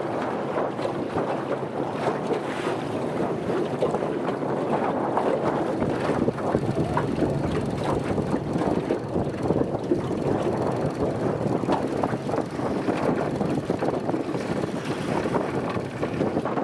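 Wind buffeting the microphone over choppy river water, a steady rushing noise with constant small splashes and gusts.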